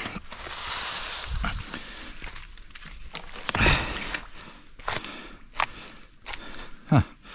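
Footsteps with a scatter of knocks, scrapes and rustles as pieces of wood are set down to make a footing on wet ground.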